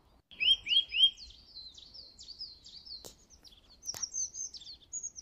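Small birds chirping: a quick run of three rising chirps near the start, then a string of short, high, down-slurred chirps, with two faint clicks about three and four seconds in.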